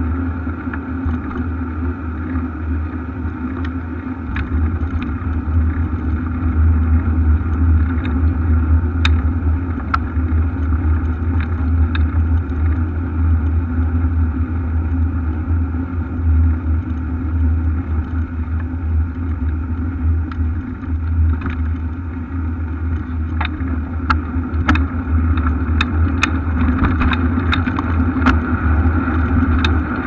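Bicycle ride heard through a bike-mounted camera's microphone: a steady heavy low rumble of wind and road vibration, with sharp clicks and rattles from bumps that grow more frequent near the end.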